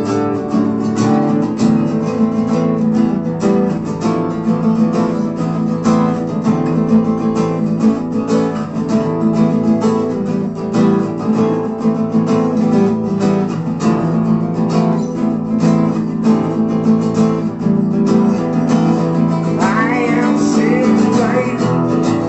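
Acoustic guitars strumming a steady rhythm through an instrumental break of an acoustic rock song, with no singing.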